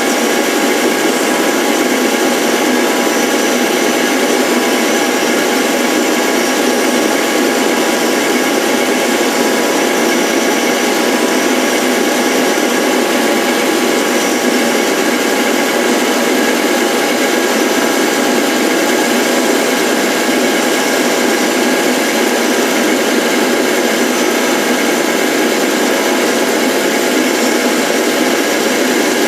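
Motors of a rose engine lathe running steadily through a shallow ornamental cut: an even whine of many steady tones over a hiss.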